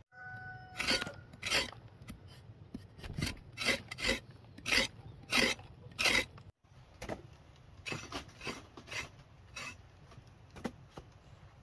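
Repeated rasping strokes, about one and a half a second, with a short break a little past halfway through.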